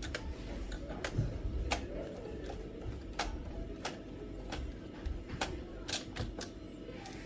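Scattered sharp plastic clicks and knocks, about ten at uneven intervals, from hands working the Brother DCP-T310 printer's plastic housing and latches to pry its power supply unit loose.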